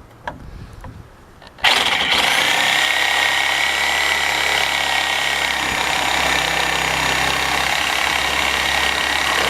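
DeWalt DWE304 10-amp corded reciprocating saw starting abruptly about a second and a half in and running steadily, cutting through a piece of wood. A few light handling clicks come before it starts.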